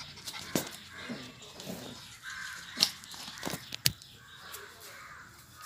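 Two Lhasa apso puppies play-fighting on a hard floor: scuffling, with several sharp knocks and taps spread through, alongside short harsh calls.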